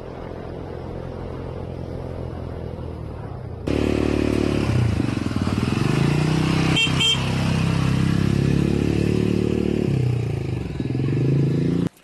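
Three-wheeled motorcycle's engine running as it rides along, quieter for the first few seconds, then close and louder with its pitch rising and falling as the throttle changes. Two short horn beeps come about seven seconds in, and the sound cuts off suddenly at the end.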